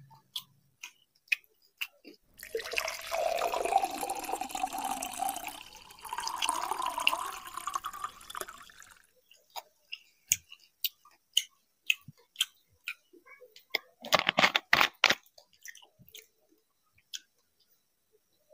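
Orange soda poured from a plastic bottle into a drinking glass in one pour of about seven seconds that rises in pitch partway through. Scattered small clicks follow, with a cluster of sharp knocks about fourteen seconds in.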